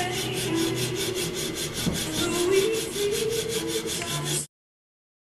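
Hand file rasping across the steel lever cap nose of a shoulder plane held in a vise, in quick, even strokes, filing the nose square. The filing stops abruptly about four and a half seconds in.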